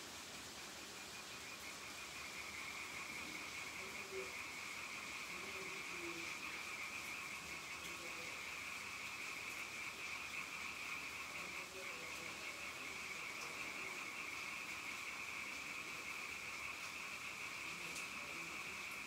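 A steady, high-pitched chorus of night-calling animals. It sets in about a second and a half in and carries on unbroken.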